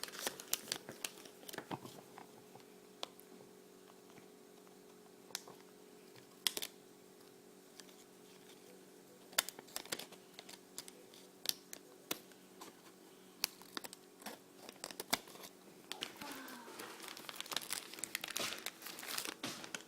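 Plastic blind bag being torn open and crinkled by hand, with scattered sharp crackles and rustles throughout.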